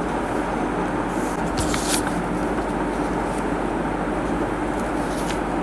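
Steady background hum and hiss with no rhythm or sudden events: the constant machine noise of the room.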